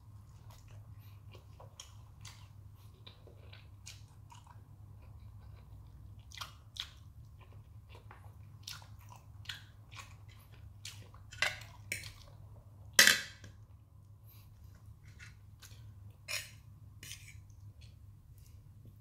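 A person chewing and eating Samyang spicy instant noodles with a fried egg: irregular wet mouth clicks and smacks, with a louder smack or click about two thirds of the way through, over a low steady hum.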